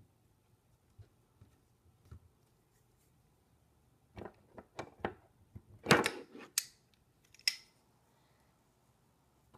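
Metal garlic press clicking and clattering as it is loaded with play dough and picked up, its metal handles and hinge knocking together. A string of sharp clicks builds to the loudest clatter about six seconds in, with one last click about a second later.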